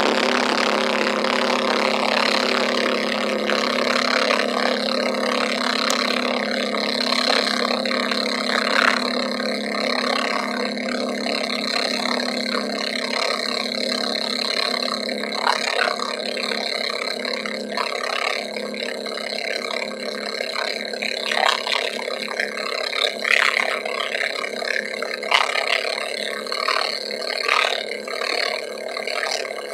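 Motorboat engine running steadily under way, with water rushing past the hull and occasional short knocks.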